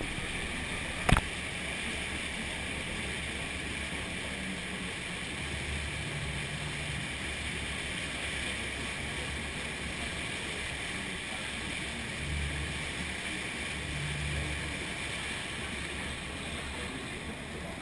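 Tour boat under way: a steady rush of its engine and churning wake, with wind on the microphone. A single sharp knock about a second in.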